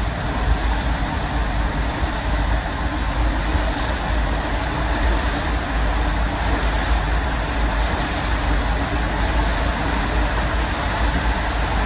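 Inflatable raft riding down the AquaDuck water coaster's enclosed acrylic tube: a steady rush of water with a deep rumble.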